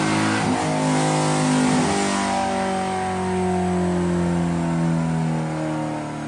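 Chevrolet Corvette C6 Grand Sport's 6.2-litre LS3 V8 running on a chassis dyno and winding down after a pull. The engine note breaks briefly about half a second in, then falls slowly and steadily in pitch as the revs drop.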